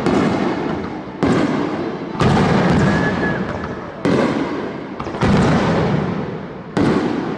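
Aerial fireworks shells bursting in a display: six loud booms about a second or so apart, each dying away in a long trailing rumble before the next.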